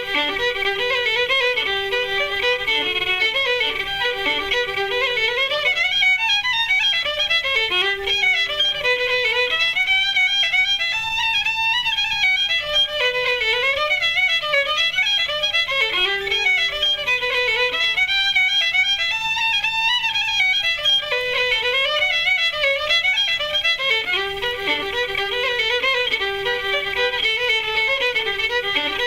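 Fiddle music: a quick, moving melody, with a lower held note that returns between phrases.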